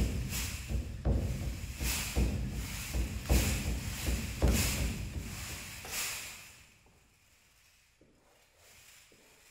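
Sequin-and-fringe costume shaking and rustling with footfalls on a wooden floor, coming in uneven strokes, then falling away to near quiet after about six and a half seconds.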